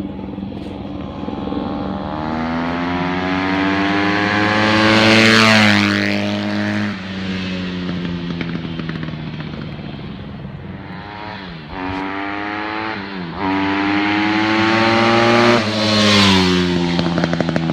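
2009 Honda CRF150RB four-stroke single-cylinder dirt bike on its stock muffler, ridden past twice: engine pitch climbs under throttle, falls as the bike goes by about five seconds in, dips sharply a couple of times around the middle, then climbs to a second loud pass near the end.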